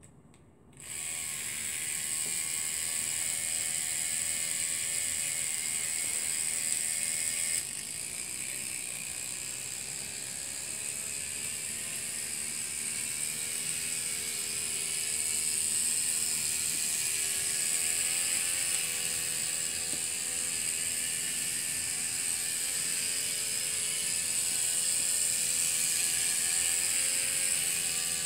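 A miniature steam speeder's one-cylinder, single-acting steam engine starts suddenly about a second in and keeps running steadily, driving the car around its metal track through an O-ring belt. The pitch wavers slightly as it runs.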